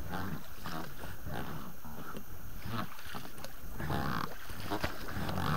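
Inflatable rubber boat being hauled through bog: the hull drags and scrapes over wet grass and mud, with repeated low, strained grunt-like sounds and rustling that grows stronger about four seconds in.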